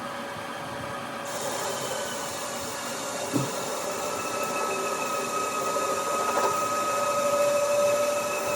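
CNC lathe turning a steel bar under program, a steady whine with a hiss that comes in about a second in. One short knock sounds a little after three seconds.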